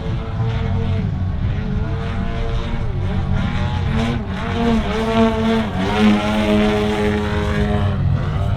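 Engine and propeller of a 102-inch Apex Aerotech Slick 360 aerobatic model plane in flight, its pitch dipping and climbing several times, then holding steady for about two seconds before dipping again near the end.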